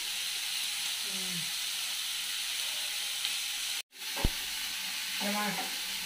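Onion-and-tomato masala frying in oil in a pan, a steady sizzle. The sound breaks off for a moment a little before four seconds in, then picks up again with a sharp tap.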